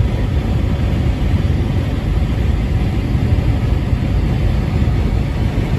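Steady low rumble of a vehicle travelling at highway speed: engine and road noise, with no horn or other event.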